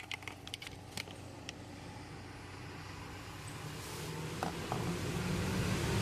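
A few light clicks, then a low engine rumble that grows steadily louder from about two seconds in, as a motor vehicle approaches.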